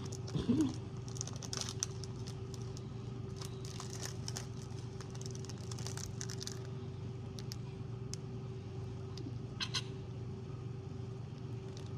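Plastic snack wrapper crinkling and rustling in short spells, with scattered small clicks, over a steady low hum.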